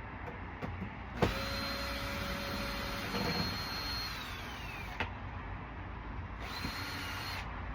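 Power drill running in two bursts, most likely driving out screws. The first run lasts about four seconds and winds down in pitch as the trigger is released. A shorter run of about a second comes near the end.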